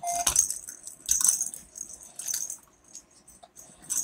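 Plastic baby rattle toy being shaken, clattering in several short, irregular bursts.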